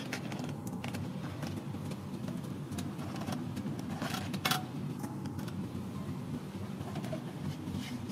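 Plastic food packets crinkling and tearing as they are opened by hand, with a few sharp crackles, the loudest about four seconds in, over a steady low hum.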